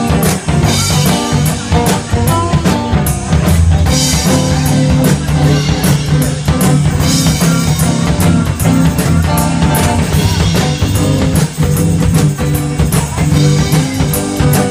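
Live band music: electric guitar and acoustic guitar played over bass and percussion, with a steady beat.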